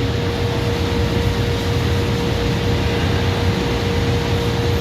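Steady mechanical hum of a CNC machine standing running, with a constant mid-pitched whine over it.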